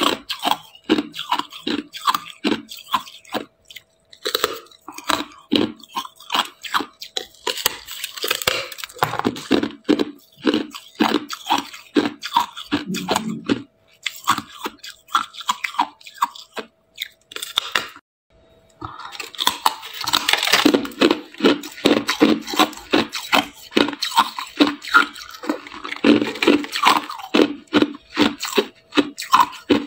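Hard clear ice being bitten and chewed, a fast, uneven run of sharp crunches and crackles, with a short pause a little past the middle.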